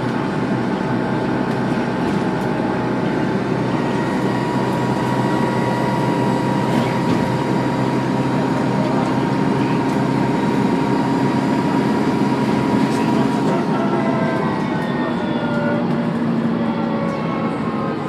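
Dennis Trident II double-decker bus heard from inside, engine running under way with a loud, steady high turbo whine over the rumble. In the last few seconds the whine slides down in pitch as the bus slows.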